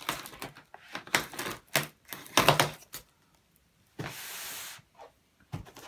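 A large taped cardboard parcel being handled on a wooden table: a run of sharp knocks and thumps, the loudest about two and a half seconds in, then a short steady scraping rasp about four seconds in.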